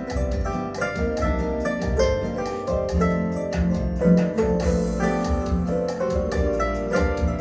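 Instrumental music: a piano-like keyboard plays a melody and chords over a pulsing bass line and a steady beat.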